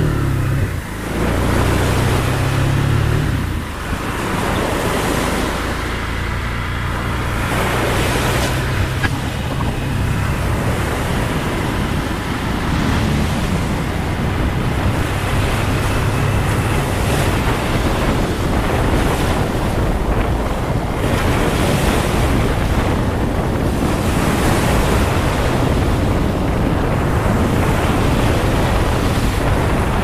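Wind rushing over the microphone of a camera on a moving motorcycle, with the motorcycle's engine running in a steady low drone underneath.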